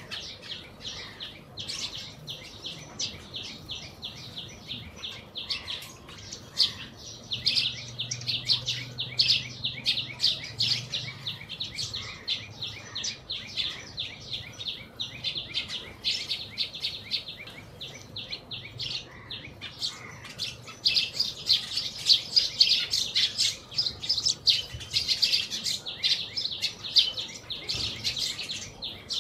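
A small flock of Eurasian tree sparrows chirping in a rapid, unbroken chatter as they feed on a hanging bunch of rice ears. The chirping grows busier about a quarter of the way in and again over the last third.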